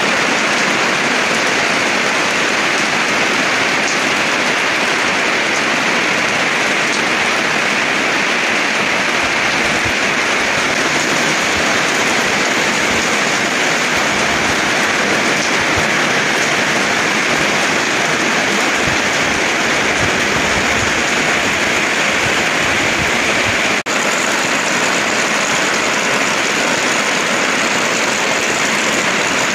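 Heavy tropical rain pouring steadily onto garden foliage and soil, a dense, even hiss that breaks off for an instant once, near the end.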